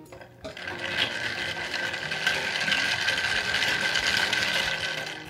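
Ice cubes rattling and scraping against a glass mason jar as a drink is stirred with a metal straw. It starts about half a second in and goes on as one continuous rough clatter.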